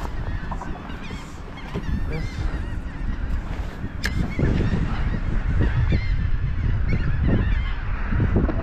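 Birds calling over and over in short wavering honks, over a dense low rumble that gets louder about halfway through.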